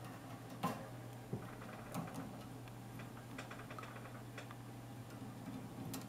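Scattered soft clicks and ticks of a budgerigar's beak and feet on its cage perches and bars, with a short run of quick fine ticks about three and a half seconds in, over a steady low hum.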